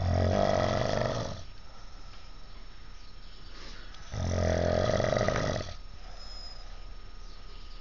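A sleeping man snoring: two loud snores with a low buzz, each about a second and a half long, about four seconds apart.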